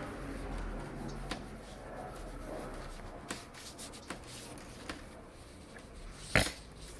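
Hands handling the keypad lock and cleaning materials: light rubbing and scattered small clicks, with one sharp knock about six seconds in.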